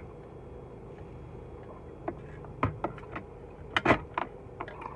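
Close-up chewing and lip smacks, a few sharp wet clicks with the loudest about four seconds in, over a steady low hum of a car cabin.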